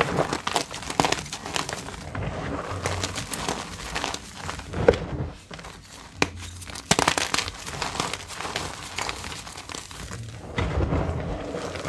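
Purple gym chalk bars being crushed and crumbled by hand in a bed of chalk powder: continuous irregular crunching and crumbling with sharp cracks, the loudest a little before halfway and at about seven seconds.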